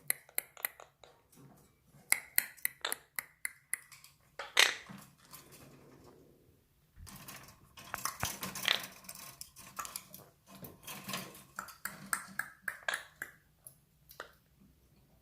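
Monk parakeet clicking: quick, sharp clicks, several a second, with one louder sound about four and a half seconds in and a busier, noisier stretch in the middle.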